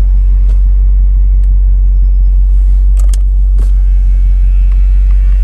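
BMW X5 V8 engine idling, heard inside the cabin as a steady low rumble, with a few sharp clicks from the dashboard navigation control knob and buttons being pressed, the loudest about three seconds in.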